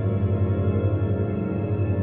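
Suspense sound effect: a low, steady, dark ambient drone with gong-like overtones and a slight wavering flutter.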